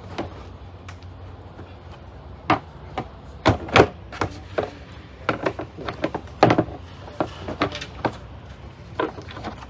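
Parts of a dumbbell set knocking and clicking as they are handled and set into their moulded plastic carrying case: weight plates, bars and spin-lock collars. The knocks are irregular, about a dozen of them, the loudest just under four seconds in and again about halfway through.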